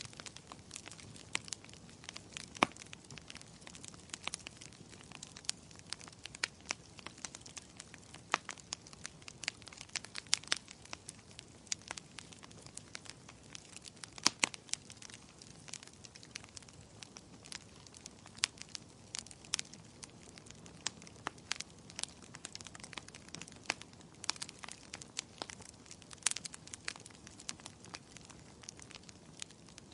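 Firewood burning in a fireplace: a steady low hiss of flames with frequent irregular crackles and sharp pops, a few louder snaps scattered through.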